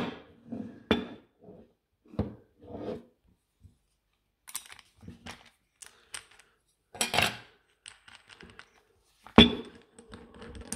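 Metal parts of an angle-grinder multi-tool adapter clinking and knocking as they are handled and fitted onto the grinder's head: scattered sharp clicks with pauses between, the loudest near the end with a brief ring.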